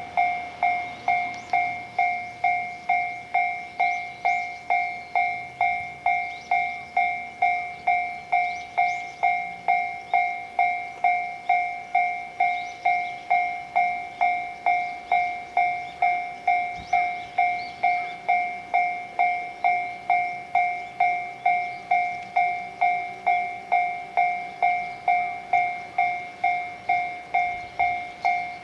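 Japanese railway level-crossing warning bell ringing at an even pace of about two dings a second, each ding dying away before the next. It is the crossing's warning that a train is approaching.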